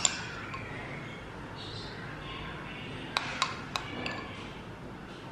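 Metal spoon clinking and scraping against a glass bowl while scooping sticky jam: one sharp clink at the start, then three light clinks in quick succession about three seconds in.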